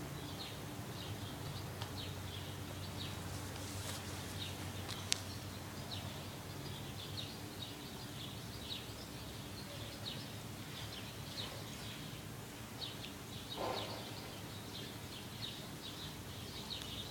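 Small birds chirping in short, repeated calls, over a steady low hum; one sharp click about five seconds in.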